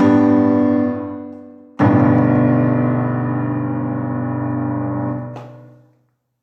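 Piano playing the closing chords of a piece: a held chord dies away, then a final chord is struck about two seconds in, held, and fades out to silence near the end.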